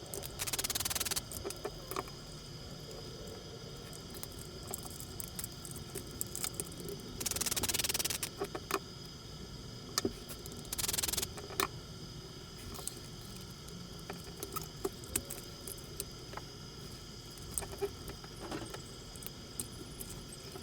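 Hands taking apart a radio-controlled car chassis: scattered small clicks and taps of plastic and metal parts, with three short bursts of scraping noise, the first near the start, the others about seven and eleven seconds in.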